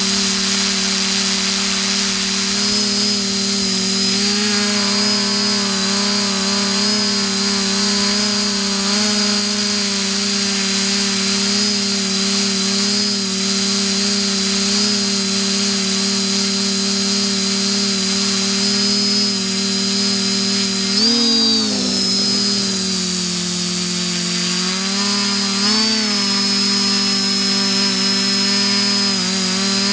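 Multirotor drone's electric motors and propellers whining steadily, heard from the camera on board, with a thin high whine above. About 21 seconds in the pitch swings and drops for a few seconds, then rises again near 26 seconds as motor speed changes.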